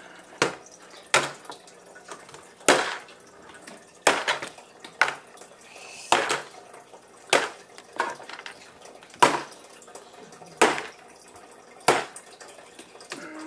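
Hard plastic toy knocking and clacking: a plastic dinosaur toy and its plastic nest base bumped against a plastic high-chair tray, about a dozen sharp knocks roughly one a second.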